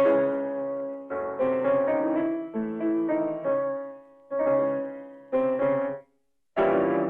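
Piano playing a series of short chordal phrases, each struck sharply and dying away, with a brief cut to dead silence about six seconds in before it starts again.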